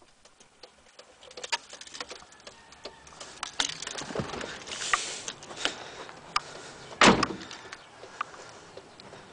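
Scattered light clicks, taps and rustles as someone moves about and climbs out of a small pickup's cab, with one louder thump about seven seconds in.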